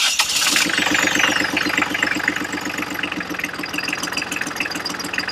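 Small Volvo Penta marine diesel engine starting up and settling into a steady idle with an even, rapid knock. It is being run after an oil and filter change so that the new filter fills with oil before the dipstick is rechecked.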